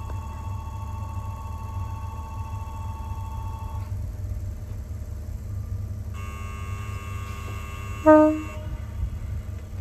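Konan Railway Konan Line electric train sounding one short horn blast about eight seconds in, the signal that it is departing, over a steady low rumble. Before that, a steady electronic tone cuts off about four seconds in, and a higher multi-tone signal sounds from about six seconds in.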